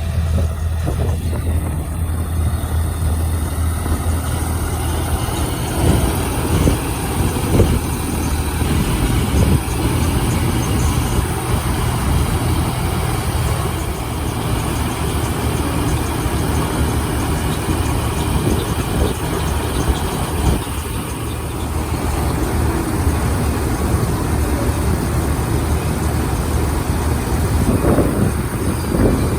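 Paddy harvester's engine running steadily with a low hum, mixed with the noise of its working machinery.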